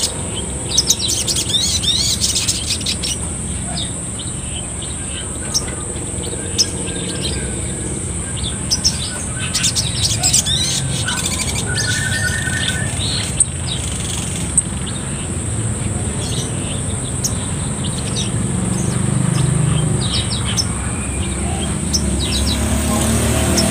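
Male olive-backed sunbird (sogon) giving sharp, high chirps and quick twittering trills in bursts, with a steady high-pitched whine underneath.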